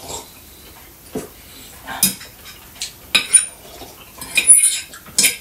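Cutlery clinking and scraping against plates and bowls as people eat at a table: a string of irregular sharp clinks that gets busier in the second half.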